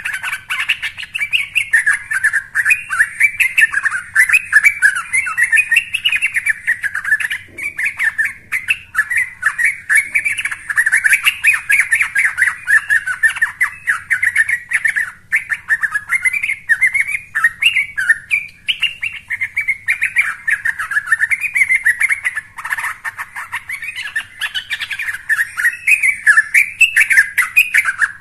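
Young yellow-vented bulbul (trucukan) singing a long, lively run of quick chattering, warbling notes, hardly pausing. This is the full, active song keepers call gacor, used as a lure recording to get other bulbuls singing.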